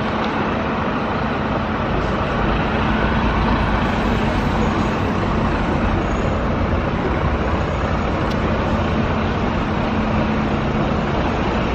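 Steady city-street background noise: a continuous traffic rumble with a faint low hum.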